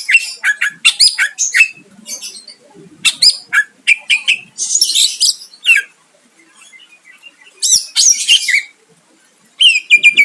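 A cucak ijo (green leafbird) singing loudly in rapid, varied phrases: quick whistled notes and trills mixed with harsh, buzzy bursts, with brief pauses about six seconds in and near the end. This is the full, energetic song kept birds are played to provoke rivals into answering.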